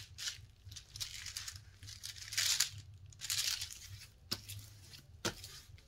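Diamond painting canvas crinkling as it is handled and smoothed flat, in several short rustling bursts with a couple of sharp clicks near the end.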